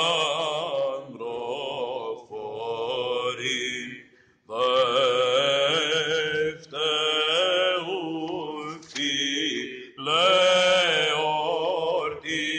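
Byzantine chant: a solo male cantor singing a long, ornamented melisma in several breath-separated phrases, over a steady low held note (the ison).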